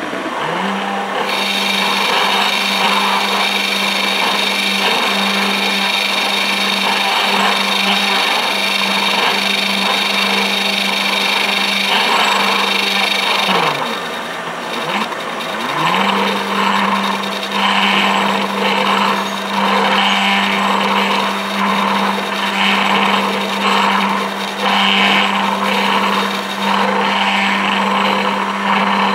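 CNC milling machine spindle running with a steady hum while cutting a Foster quick-coupling fitting. A constant high cutting noise runs through the first half. The spindle then winds down and spins back up, and the cutting comes in short, repeated passes.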